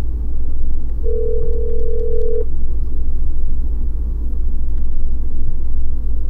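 Telephone ringback tone on an outgoing call: one ring about a second in, lasting about a second and a half, then a pause. A steady low rumble runs underneath.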